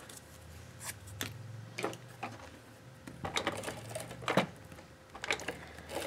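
Scattered light taps and rustles of cardstock pieces being handled and set down on a cutting mat, a dozen or so irregular clicks. A faint low hum sits under the first half.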